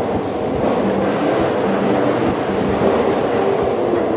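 Passenger train coaches rolling past at speed: a steady rumble of wheels on rail, with short ringing wheel tones coming and going.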